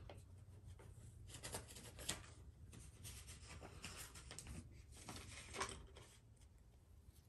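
Faint rustling and handling noises with scattered light clicks and a couple of small knocks, about two seconds in and again past five seconds: hands rummaging for a polishing cloth among items on a table.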